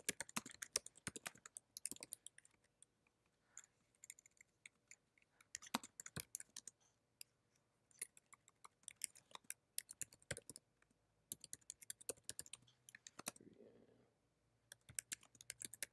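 Typing on a computer keyboard: rapid runs of keystroke clicks in bursts, with short pauses between them.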